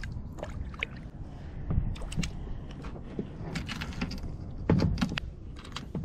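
Irregular sharp clicks and knocks from gear being handled against a plastic kayak, a few at a time, over a steady low rumble.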